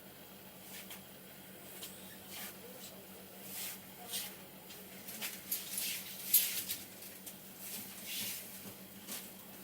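Hands rubbing and patting on hair and scalp during a head massage: a run of short rustling strokes, with one sharp click a little past the middle.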